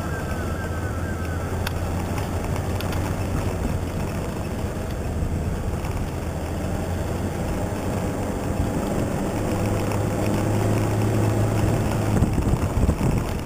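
Toyota Hilux 4x4 engine running under load while driving off-road, a steady low drone with scattered knocks and rattles from the rough ground and the vehicle. The engine note gets stronger about two-thirds of the way through, and there are a few louder jolts near the end.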